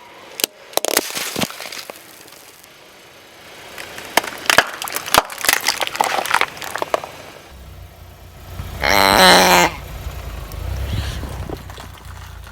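A car tyre rolling onto and crushing crunchy objects: a run of sharp cracks and crunches over a low vehicle rumble. About nine seconds in comes a loud pitched squeal lasting under a second.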